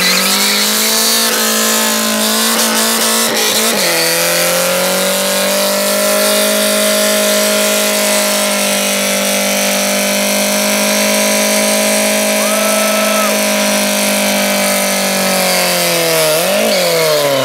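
Car doing a long burnout: its engine is held at high, steady revs while the tyres spin and smoke. The pitch steps slightly lower about four seconds in, and there is a quick dip and rise near the end before it cuts off.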